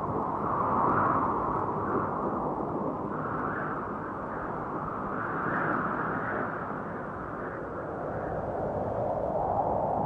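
Steady, muffled rush from a DJI Phantom 1 quadcopter's propellers and motors, with wind, picked up by the GoPro it carries. It swells and eases every few seconds.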